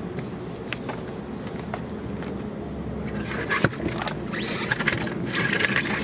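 Removed car wheel and tyre handled on asphalt: scattered light clicks, then a sharp knock about three and a half seconds in and scraping as the tyre is slid along the ground.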